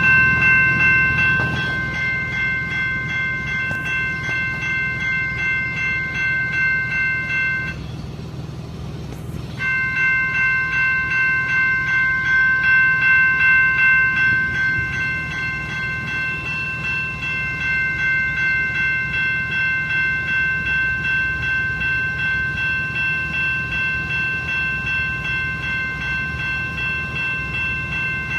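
Train horn sounding a chord of several notes, held long, breaking off for about two seconds some eight seconds in and then held again, over the low rumble of the passing train.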